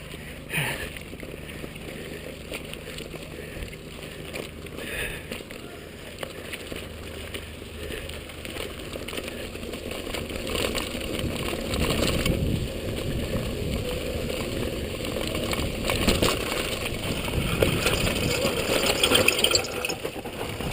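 Downhill mountain bike on a dirt trail, heard from a helmet-mounted camera: fairly quiet at first, then from about halfway a louder rumble of tyres on dirt, wind on the microphone and small rattles from the bike as it gets rolling.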